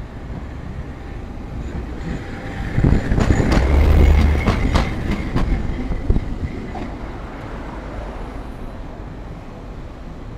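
Hankai Tramway streetcar no. 603 passing close by. It grows to its loudest about three to five seconds in, with a rumble, a quick run of sharp wheel clicks over the rail joints and a high steady whine, then fades as it moves away.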